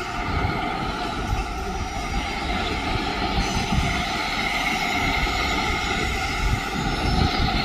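Steam locomotive 60007 Sir Nigel Gresley, an LNER A4 Pacific, running slowly into a station: a low rumble with a steady high-pitched ringing above it.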